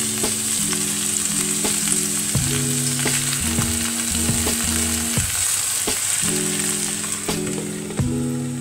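Asparagus, carrots and kale sizzling in coconut oil in a frying pan: a steady hiss with a few small clicks. About eight seconds in, a glass lid clinks down onto the pan. Soft background music plays underneath.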